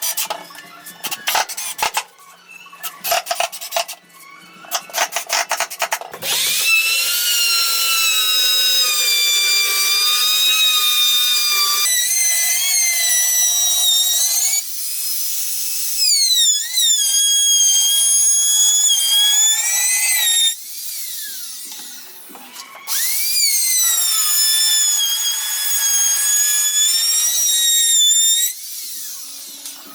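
Power drill running in two long stretches, its motor whine dipping and rising in pitch as the load changes. Before it, a few seconds of rapid, irregular rasping strokes.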